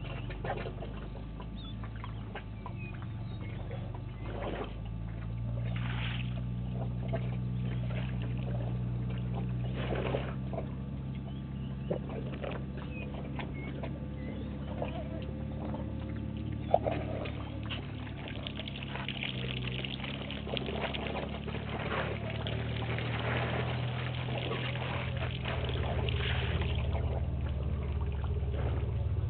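Water splashing and trickling as an African elephant bull drinks at the water's edge, drawing water up its trunk and spilling it, over a steady low hum. A single sharp click about halfway through.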